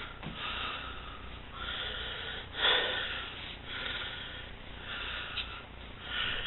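Quiet breaths from a person, short and noisy, coming about once a second, with one slightly stronger breath just under three seconds in.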